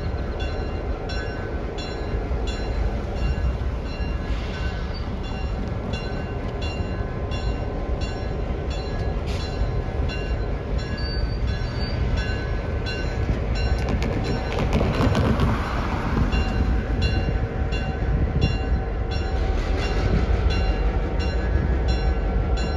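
Diesel locomotive rumbling steadily at idle, with a bell dinging evenly about twice a second. A car passes over the crossing midway, swelling briefly over the rumble.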